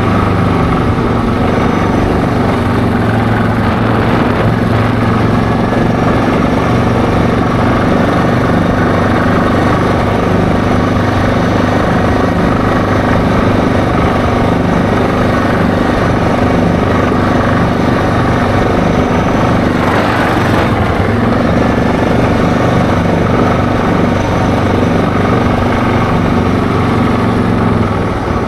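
ATV engine running at a steady cruising speed under way, with a brief swell of noise about two-thirds of the way in.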